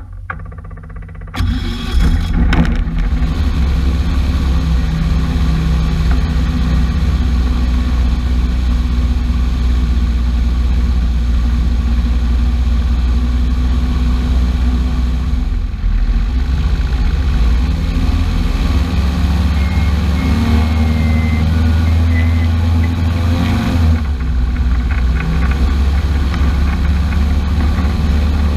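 An engine running steadily, loud and low; it comes in suddenly about a second in.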